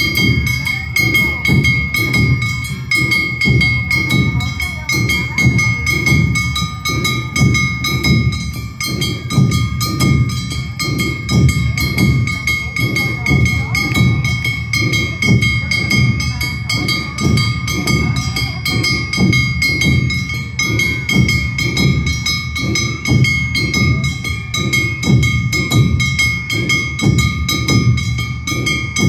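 Awa Odori festival band playing: large taiko barrel drums struck with sticks in a quick, steady rhythm, with steady high ringing tones held above the drumming.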